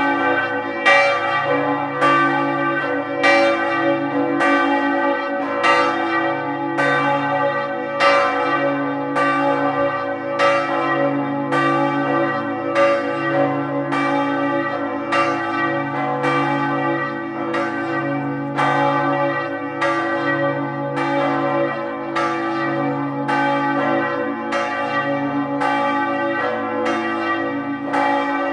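Church bells ringing in the tower, struck in a steady, even rhythm, each stroke ringing on into the next over a continuous low hum.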